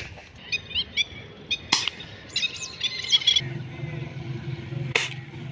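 Small birds chirping in quick runs of short calls, with a sharp click about two seconds in and another near the end. A steady low hum starts about halfway through.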